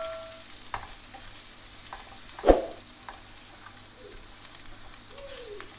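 Onions and ground spices frying in mustard oil in a nonstick pan with a low sizzle, while a slotted spatula scrapes and taps as it stirs them. There is one louder knock about two and a half seconds in.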